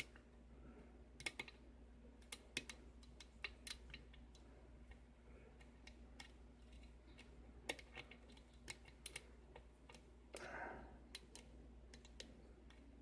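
Faint, irregular light clicks of a hook pick working the pins of a six-pin tumbler lock under tension, as pins are lifted and set.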